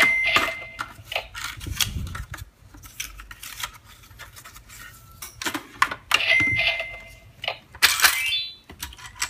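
Licca-chan toy cash register being worked: plastic keys clicking, two short electronic beeps, and a loud clatter of play coins with a rising chime near the end as change is made.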